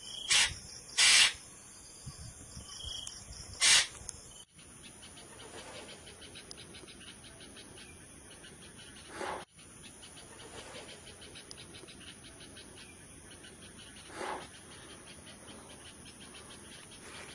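Insects chirping steadily in the background: a continuous high buzz with fast, evenly repeating pulses. A few short, loud, sharp sounds stand out in the first four seconds, with fainter ones about nine and fourteen seconds in.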